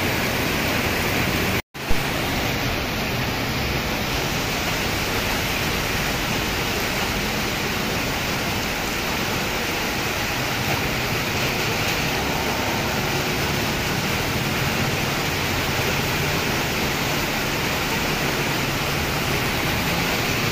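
Heavy tropical downpour pouring onto a flooded street, a steady, even hiss of rain. It cuts out for an instant about two seconds in.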